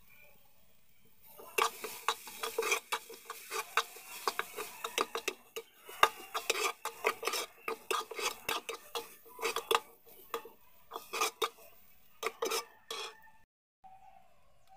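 A metal spoon scraping and clinking against a metal pot as moist diced beetroot and grated coconut are stirred. The strokes are quick and irregular, starting about a second and a half in and stopping shortly before the end.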